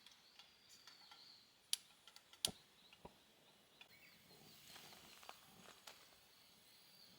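Near silence: scattered faint clicks and taps, two sharper ones about two seconds in, over faint high chirps.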